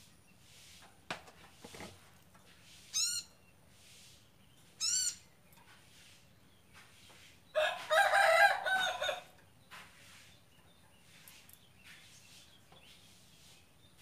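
Birds calling: two short, wavering, high calls a couple of seconds apart, then a louder, longer call lasting about a second and a half just past the middle.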